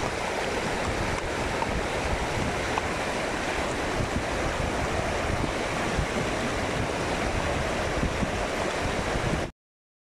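Steady rush and gurgle of the shallow Swat River running over stones and cobbles in riffles. It cuts off suddenly near the end.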